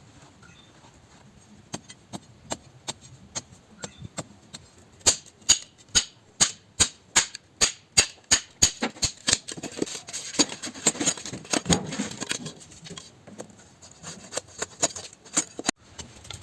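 Repeated sharp knocks, first a few scattered ones, then a steady run of loud strikes at about two to three a second, followed by denser, noisier knocking.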